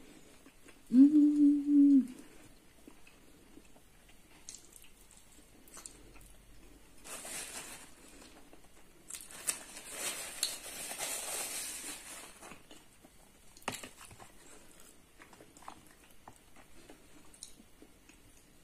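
Close-up eating sounds: a short, steady hummed 'mmm' about a second in, then quiet chewing of flatbread. Later comes a few seconds of paper towel rustling as hands and mouth are wiped.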